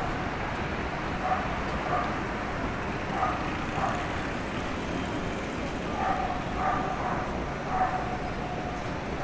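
A dog barking in short repeated yaps, roughly one a second with a gap in the middle, and one longer drawn-out call near the end, over steady street noise.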